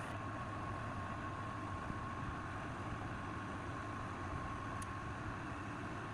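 A workshop power tool running steadily, its motor giving a constant high whine over an even rushing noise.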